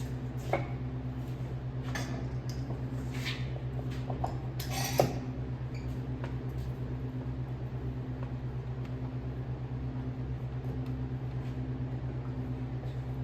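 Sawmill running with a steady low hum and a slow, even pulse. A few sharp metallic clinks come through, the loudest about five seconds in.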